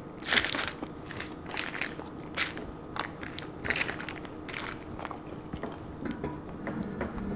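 Close-mic eating sounds: a person biting into and chewing a crispy fried caramel cheesecake egg roll, with a run of sharp crunches in the first half or so, then softer chewing.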